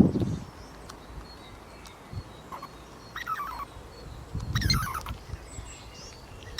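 Squirrel giving two short bursts of rapid, falling chattering calls, about three and four and a half seconds in, with some low rustling.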